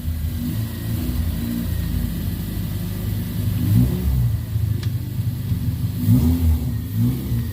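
Car engine accelerating on a test drive, its revs climbing and dropping twice as it pulls through the gears. The owner says the engine still has a hiccup around 3,000 rpm that new coil packs have not cured.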